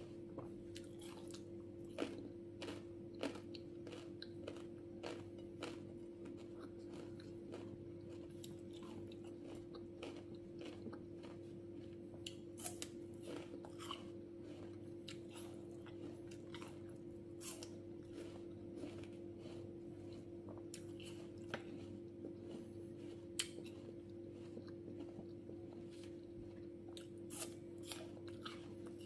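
Close-up crunchy chewing and biting of crisp raw fruit slices, with many short sharp crunches, over a steady low hum.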